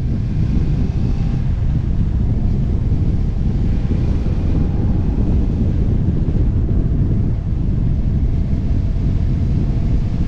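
Steady, loud wind rushing over the camera microphone on a moving motorcycle, with the bike's engine note faintly beneath it.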